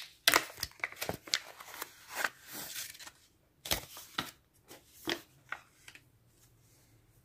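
Kraft paper zip-top pouch rustling and crinkling as it is pulled open and handled: a run of sharp paper crackles and snaps that stops about five and a half seconds in.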